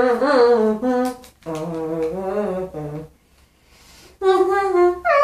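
A young woman's voice humming a tune without clear words, in held notes that move from pitch to pitch. It breaks off for about a second around three seconds in, then picks up again on higher notes.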